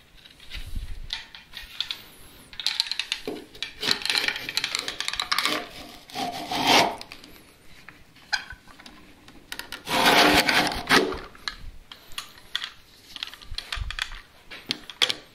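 A plywood strip scraping and rubbing against an aluminium bar clamp's bar as it is forced into the tight channel, in irregular bursts, the loudest about ten seconds in.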